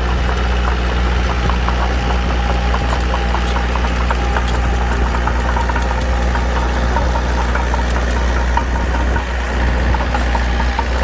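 Small bulldozer's diesel engine running steadily at a constant speed, with scattered light clicks over the drone.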